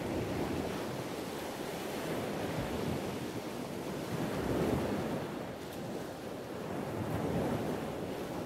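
Ocean surf: a steady wash of waves that swells and eases every two to three seconds.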